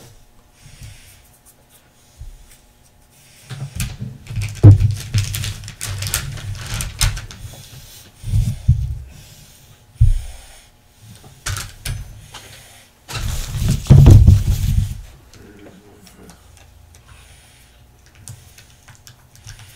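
Irregular bumps, rubs and clatter of objects being handled on a worktable, in several noisy stretches with the loudest about four to seven and thirteen to fifteen seconds in, and quieter gaps between.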